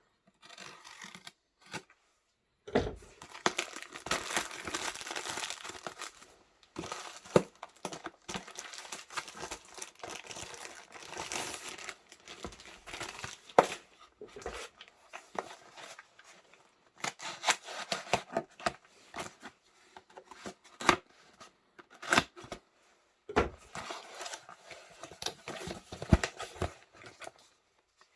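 Packaging being unwrapped by hand: crinkling and tearing of paper or plastic wrapping, with many sharp clicks and small knocks of the box being handled.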